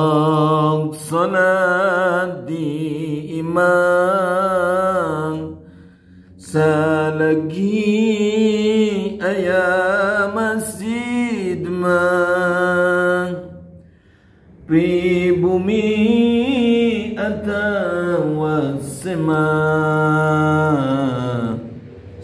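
A man singing an unaccompanied Sundanese devotional chant (pupujian), in long, wavering, ornamented phrases with short breaks for breath about six and fourteen seconds in.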